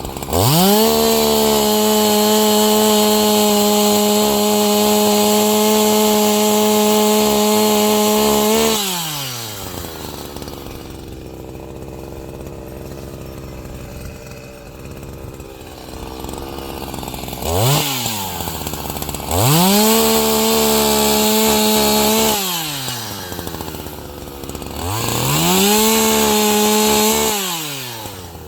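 Chainsaw engine opened up to full throttle and held there for about eight seconds, then dropped back to a low idle. It revs briefly, then opens up twice more for about three seconds each, falling back to idle after each.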